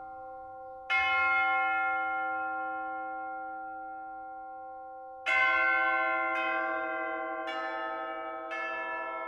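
Church bells ringing: one stroke about a second in that hums on and fades slowly, then from about five seconds in a run of strokes roughly a second apart on bells of different pitch, each ringing on over the last.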